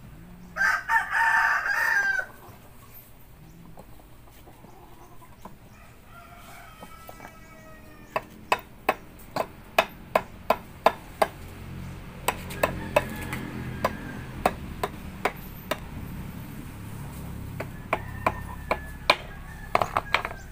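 A rooster crows once, loud and close, about a second in, and fainter calls follow a few seconds later. Then comes a long run of sharp clicks, about two to three a second, from a hand tool working on an old rubber tire, with a low rumble underneath.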